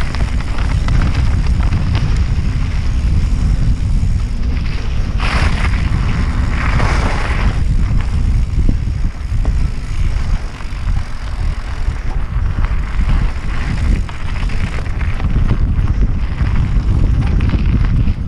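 Loud, steady wind rumble buffeting the microphone, with brief hissing bursts about five and seven seconds in.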